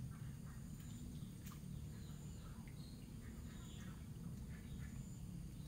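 Faint outdoor ambience: scattered bird and insect chirps and thin high calls over a low steady rumble, with a few soft clicks.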